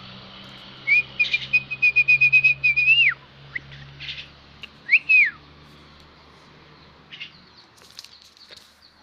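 A high whistle held for about two seconds under a quick run of chirps, ending in a rise and a swoop down, then one short rising-and-falling whistle about two seconds later.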